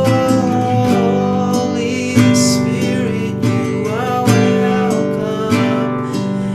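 A man singing a slow song while strumming a nylon-string classical guitar in a small tiled bathroom.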